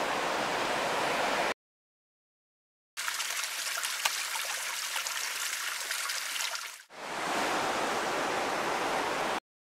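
Running river water in three separate stretches with dead silence between them: a short rush at the start, then a thinner, higher trickle with small splashes from about three seconds in, then a fuller rush again that stops just before the end. The middle stretch is water trickling down a rock face.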